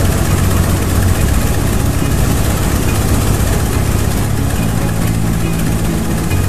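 Radial piston engine of an amphibian aircraft running steadily on a ground run, cowling removed and propeller turning.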